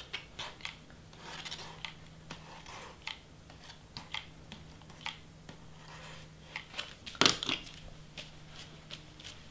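Cardstock rustling and scraping as it is lifted, glued with a hot glue gun and pressed flat by hand, with scattered small clicks and a louder rustle about seven seconds in, over a faint steady low hum.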